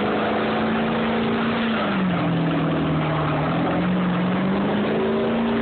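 A vehicle doing a burnout in a cloud of tyre smoke: the engine is held at high revs, its pitch sagging about two seconds in and climbing back up near the end, over a steady harsh hiss.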